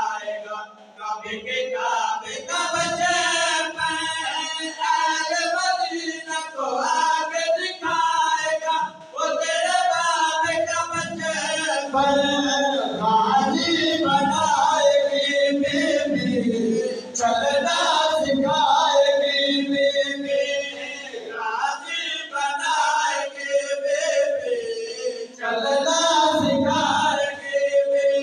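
A group of men chanting a noha, a Shia mourning lament, in unison without instruments. A lead voice is carried by the others, amplified through a microphone.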